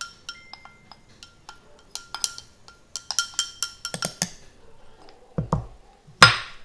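Wooden chopstick tapping and scraping against glass as butterfly pea flowers are pushed from a small glass cup into a glass beaker: a run of quick, ringing clinks, thickest midway. Near the end come a couple of dull thuds and then one loud knock, as a glass bowl is set on the table.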